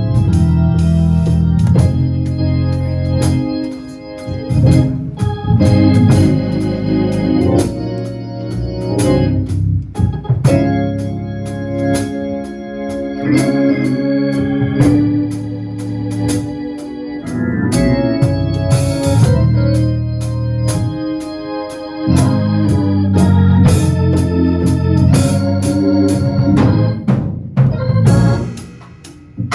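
Organ playing held chords that change every second or two, with some sharp hits among them.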